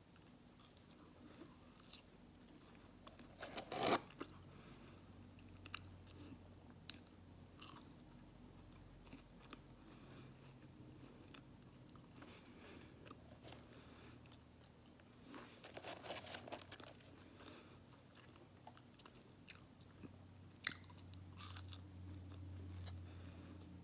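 Close-up eating sounds: bites and chewing of fast food, with small clicks throughout and louder crunchy bursts about four seconds in and again around sixteen seconds.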